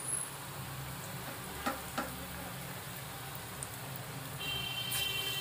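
Small potato and gram-flour pakoras deep-frying in hot mustard oil in a kadhai: a steady sizzle with a few sharp pops.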